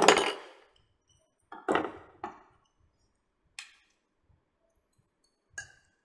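A few short clinks and scrapes of a metal spoon against the serving plate and chutney bowls, about five in six seconds, the loudest right at the start.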